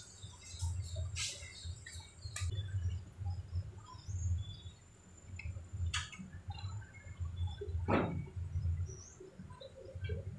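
Faint bird chirps over a low, uneven rumble, with a few sharp clicks scattered through.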